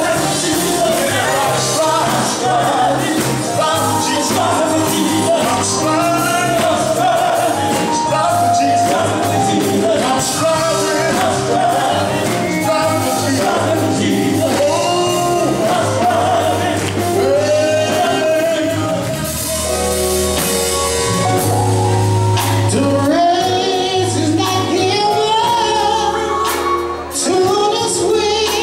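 Live gospel band: a lead singer on a microphone over electric guitars, keyboard and a steady bass line.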